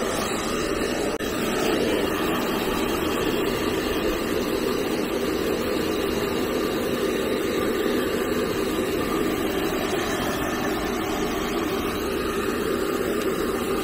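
Handheld hair dryer blowing steadily, aimed at a French bulldog's wet coat to dry it after a bath.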